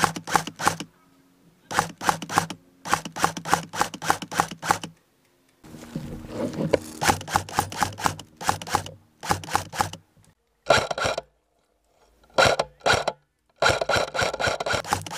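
Airsoft electric rifle firing in short bursts of rapid shots, each burst about a second long, with short pauses between.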